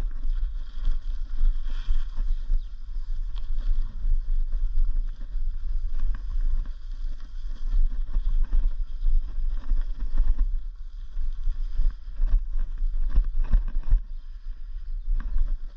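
Wind buffeting the microphone: a loud low rumble that swells and drops in irregular gusts, with a faint hiss above it.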